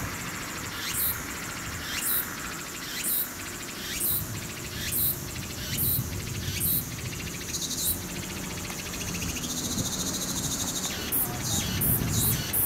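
Insects calling in a rhythmic series of short, very high notes that sweep downward, about one a second. About two-thirds of the way through they give way to a steady high buzz, then quicker notes return near the end, over a low rumble.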